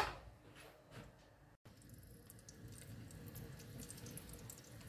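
A brief knock at the very start, then the faint sizzle and fine crackle of whole garlic cloves frying gently in olive oil in a pan.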